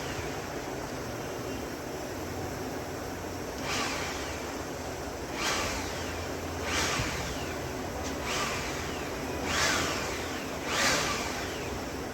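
A homemade turbojet rig's 230 V AC air blower running, a steady rushing noise with a low hum. Six brief louder surges of rushing come about every one and a half seconds.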